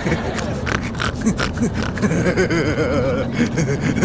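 A man laughing heartily, a long run of wavering ha-ha pulses with no words.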